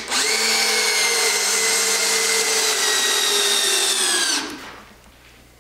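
Cordless drill-driver running steadily under load as it drives a temporary steel screw into the wooden keelson and stem. Its motor whine sags slightly in pitch near the end and then stops about four seconds in.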